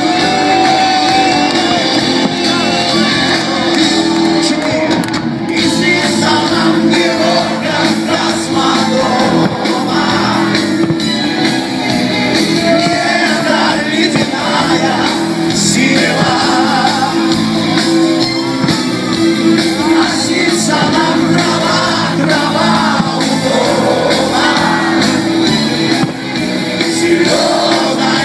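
Live rock band playing with a singer over a PA, with a crowd shouting and cheering.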